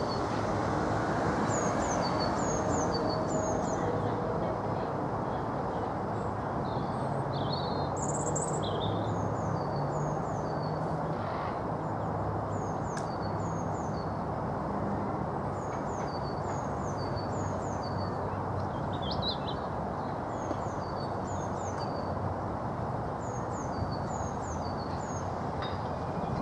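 Small songbirds chirping, many short, high, falling notes repeated over and over, over a steady low rushing background noise.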